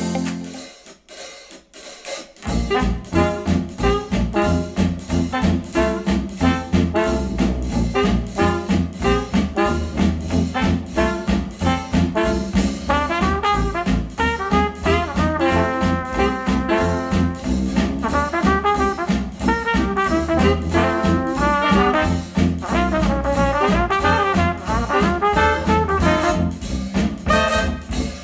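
A retro jazz track with brass and a drum kit, played through KEF Q350 bookshelf speakers driven by an Audiolab 6000A amplifier. The previous song falls away in the first couple of seconds, and the jazz track starts with a steady beat about two seconds in.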